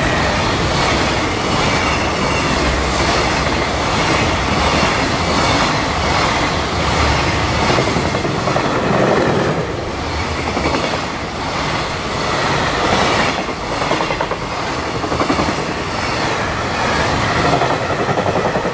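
Freight train of container flatcars passing close by at speed: a steady rumble with the wheels clattering over rail joints in a repeating rhythm. The noise drops away near the end as the train's tail goes by.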